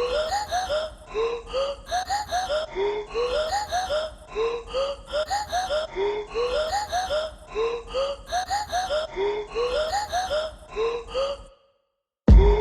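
A short edited-in sound clip looped over and over, about once a second, each repeat a quick run of rising pitched chirps. It cuts off suddenly near the end.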